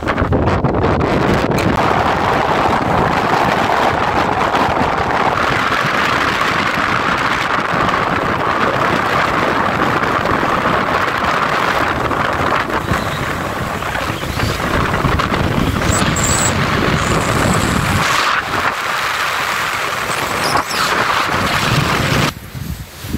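Strong mountain wind blasting against the microphone, a loud, unbroken rush of noise. It cuts off suddenly near the end.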